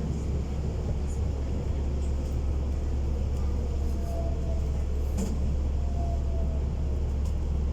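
Interior running noise of a Yui Rail monorail car: a steady low rumble. A faint whine comes twice near the middle.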